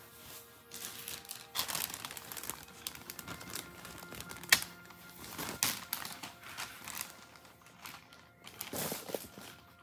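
Pet rabbit moving about its pen: irregular rustling and crinkling, with a sharp click about four and a half seconds in.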